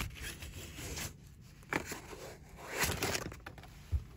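Paper rustling and a hand rubbing and pressing a sticker flat against a sheet-metal cabinet panel, with a soft knock near the end.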